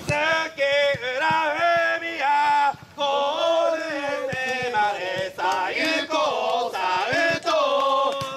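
Football supporters singing an individual player's chant together in unison, phrase after phrase, with a brief pause about three seconds in.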